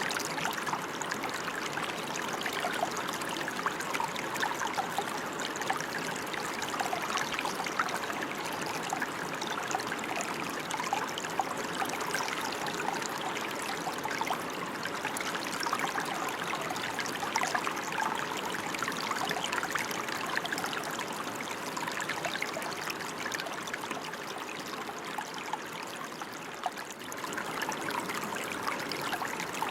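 Steady rain falling, a continuous even patter of many small drops.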